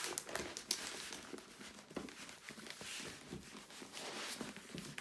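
Irregular crinkling and rustling of a diamond painting canvas and its clear plastic cover film as it is rolled up loosely by hand against its curl.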